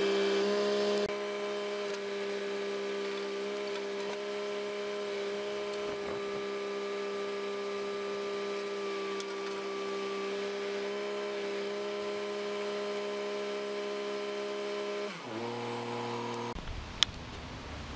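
Boom truck's engine running steadily with a constant hum while its crane lowers a heavy excavator bucket to the ground. The pitch steps down about three-quarters of the way through, and the hum fades out shortly before the end.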